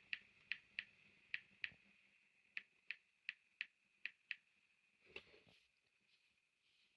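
iPhone 15 Pro Max keypad clicks as a six-digit passcode is tapped in and then entered again to confirm: six faint ticks, a pause of about a second, then six more. A soft knock from handling the phone about five seconds in.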